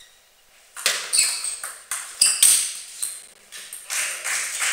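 Table tennis rally: after a short quiet serve toss, a quick run of sharp clicks as the celluloid ball strikes the bats and the table, then a louder stretch of noise near the end as the point ends.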